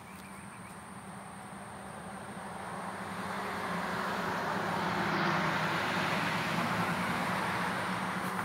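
A road vehicle passing: a rush of road noise that swells over the first five seconds and then eases off a little, over a steady low hum.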